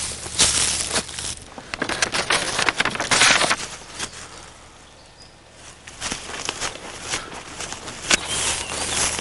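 Footsteps pushing through tall grass: an irregular run of rustling and crackling as stalks are brushed and crushed underfoot, easing off for a couple of seconds midway before picking up again.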